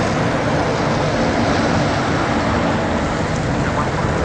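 Boeing 747's four jet engines at takeoff power, a steady broad roar as the aircraft climbs away.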